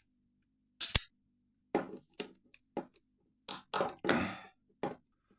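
TCH 850 steel handcuffs clinking and clicking as they are handled on the wrists during an attempt to shim them open with a homemade plastic shim. The clicks come at irregular intervals, with a slightly longer rattle about four seconds in.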